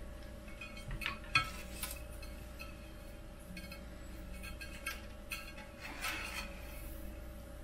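Light clinks and rustles of wires being handled, pulled and laid across an aluminium bed plate inside a metal printer frame, a few scattered taps over a faint steady hum.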